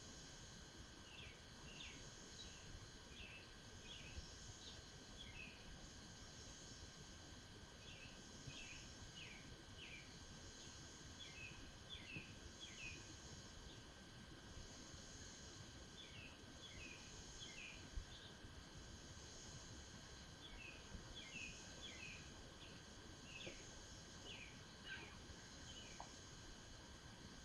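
Faint outdoor ambience: small birds giving short, descending chirps in loose clusters every few seconds, over a steady high insect drone and a low rumble.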